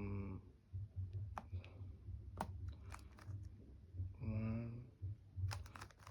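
Plastic Rubik's cube being turned by hand: irregular sharp clicks and clacks of the layers, quickening near the end. A short hummed voice sound comes near the start and again about four seconds in.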